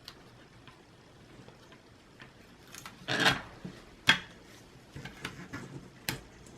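Handling noises as a 2.5-inch solid state drive is pressed into a laptop's drive bay on double-sided tape: a scrape about three seconds in, then a sharp click about a second later and another near the end, with a few light taps between.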